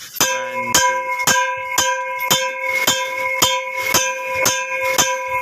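A ringing piece of metal struck over and over in an even beat, about two strikes a second, each blow leaving a bell-like ring that carries into the next.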